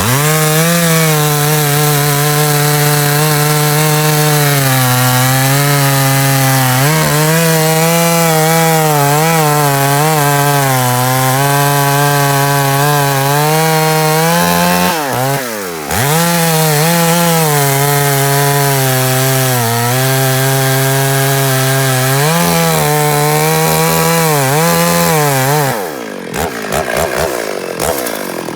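Two-stroke chainsaw cutting wood at high revs, its engine note wavering and sagging slightly as the chain bites. About fifteen seconds in, the revs drop and climb back within a second. Near the end the engine falls off to a lower speed and then revs up again.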